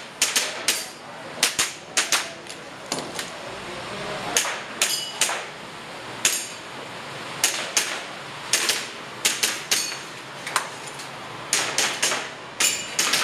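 Airsoft pistol shots fired in quick pairs and singles, about one string every second, as a shooter works through a practical-shooting stage.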